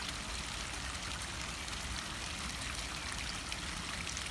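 Small woodland stream of rain runoff trickling over a little cascade: a steady rush of running water.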